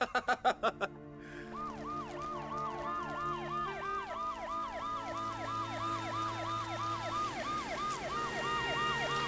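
Ambulance siren in fast wail mode, rising and falling about three times a second. It cuts in about a second and a half in and grows slowly louder as the van approaches.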